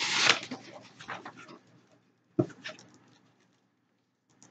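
A cardboard subscription box being handled and opened: a loud scraping rustle of the cardboard flaps at the start, then smaller rustles and clicks, and a single knock about two and a half seconds in.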